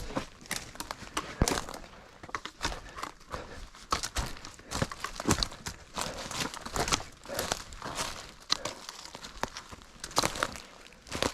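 Footsteps crunching through dry leaf litter and brushing through undergrowth, a run of irregular crackles and snaps.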